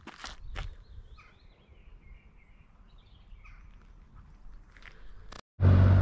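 A couple of footsteps on a dry dirt path, then a quiet stretch with faint bird calls. Near the end, after a brief dropout, a much louder steady low rumble starts.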